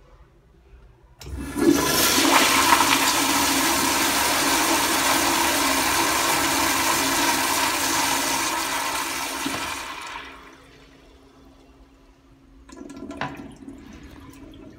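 American Standard Afwall wall-hung toilet flushing on its concealed flushometer valve: a sudden loud rush of water starts about a second in, runs steadily for about nine seconds, then tapers off as the valve shuts. A fainter trickle with a click follows near the end.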